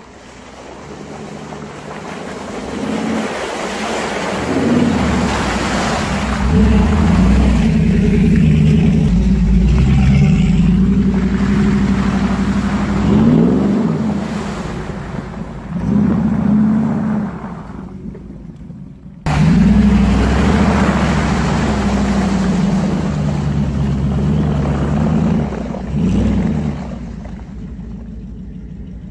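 Old Toyota Land Cruiser's V8 engine revving up and down as the 4x4 works through muddy ruts, its pitch rising and falling again and again. The sound drops out suddenly for a moment about two-thirds of the way through, then the engine picks up again.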